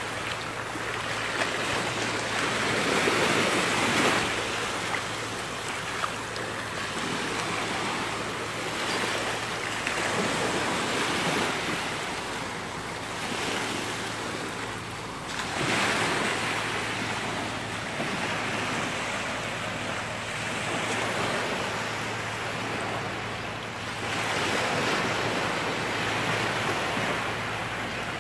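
Gentle surf: small, closely spaced waves breaking and washing up on a sandy shore, the hiss of each wash swelling and fading every several seconds.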